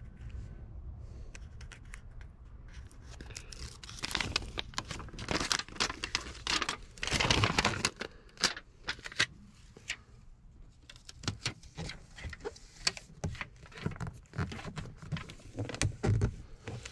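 Aluminium foil tape being pulled off the roll, torn and peeled from its paper backing, crinkling and crackling in irregular spells from about four seconds in, loudest near the middle.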